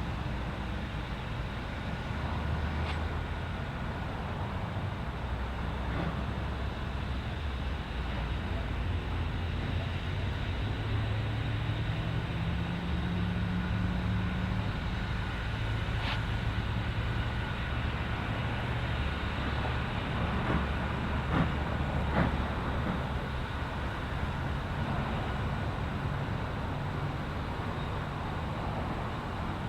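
Steady low rumble of a steam locomotive and its train, with a hum that shifts in pitch and a few light clicks or knocks.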